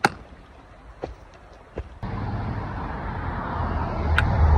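A few sharp taps about a second apart, like trekking-pole tips striking rock on a trail. Then a sudden switch to road traffic noise, with cars passing and the rushing sound growing louder near the end.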